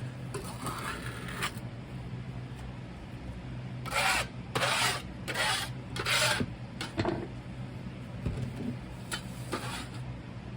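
Four short, rough scraping strokes about half a second each, a little under two seconds into the middle of the clip, over a steady low electrical hum.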